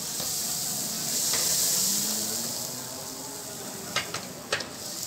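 Hot oil in a large karahi sizzling and hissing as freshly added water meets the browned onions and chicken while a slotted spatula stirs them. The hiss swells about a second in, then eases, and near the end the spatula clicks sharply a few times against the pan.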